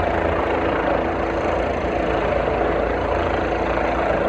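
Helicopter rotor and turbine running steadily, a continuous rapid chopping with a steady whine, heard while it works the lift between a rooftop and the street.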